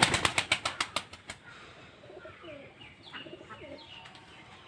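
Pigeon wings flapping rapidly, a fast run of wing claps that stops about a second in, followed by faint short bird calls.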